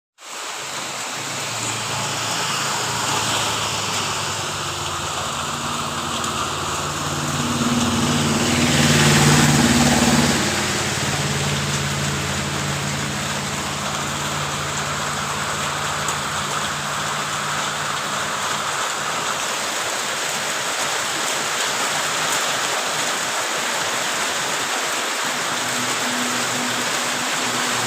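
Steady rainfall, with a low engine hum underneath that swells to its loudest about nine seconds in.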